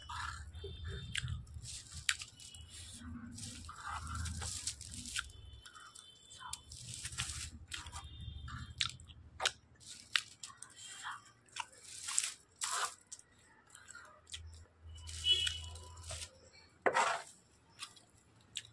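Close-up eating of Maggi instant noodles: noodles slurped off a fork, wet chewing and mouth clicks, in irregular bursts.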